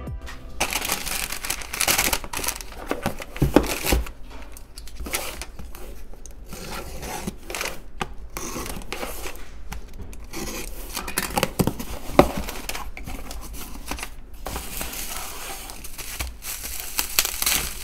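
A cardboard parcel being unboxed: a box cutter slitting the packing tape, the box flaps pulled open, and plastic packaging and bubble wrap crinkling and rustling as they are handled. A few sharp knocks of the box and contents come through, loudest about three and a half seconds in and again about twelve seconds in.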